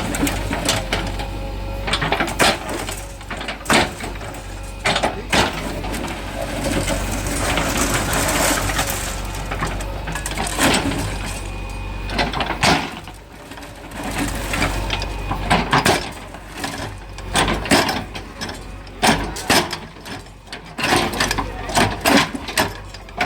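JCB 3DX backhoe loader's diesel engine running steadily under many irregular sharp knocks and crashes of masonry being broken and falling.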